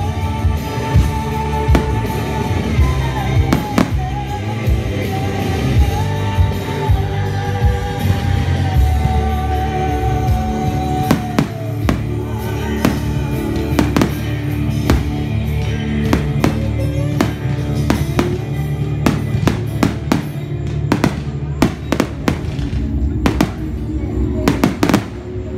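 Aerial fireworks bursting over music with singing and a steady beat. The bangs are scattered at first and come thick and fast in the last several seconds.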